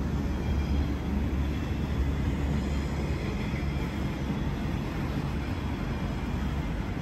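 Stainless-steel passenger carriages of the Southern Aurora heritage train rolling slowly past: a steady low rumble of wheels on rails.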